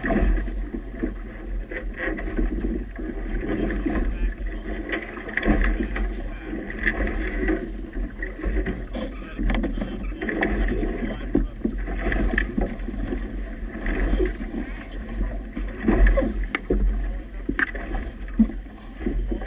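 Choppy river water splashing and slapping irregularly against a small boat's hull close to the microphone, over a steady low wind rumble.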